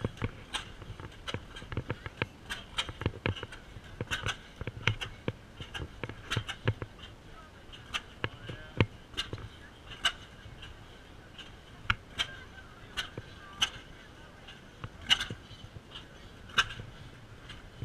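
Antique stationary gas engines running, firing in sharp pops at irregular intervals, over faint crowd chatter.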